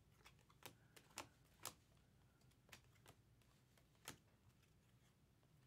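Faint, irregular clicks of glossy chrome trading cards being flicked and slid from the front of a stack to the back in the hands, seven or eight sharp ticks in all.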